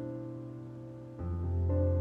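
Background piano music: held chords, with a new, louder chord and a low bass note coming in a little over a second in.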